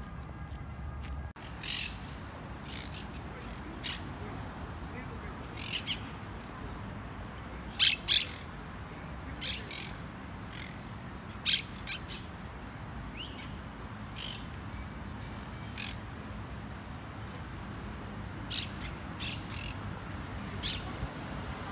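Birds calling: short, sharp calls every second or two, the loudest a close pair about eight seconds in, over a steady low background noise.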